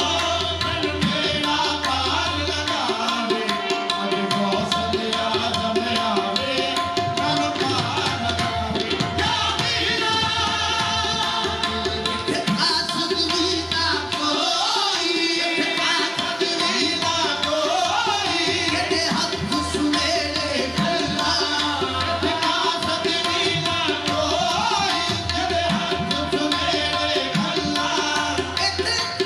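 Live qawwali music: tabla drumming steadily under a singer's voice and the sustained tones of a harmonium.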